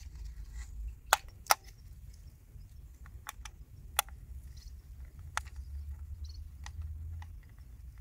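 Scattered sharp clicks and small taps of a tiny screwdriver and fingers on the plastic underside of a toy RC amphibious car as a chassis screw is worked, over a low rumble. Two loud clicks come close together just after a second in, with another about halfway through.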